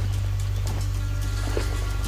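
Background music with a steady low drone, with a few faint short clicks over it.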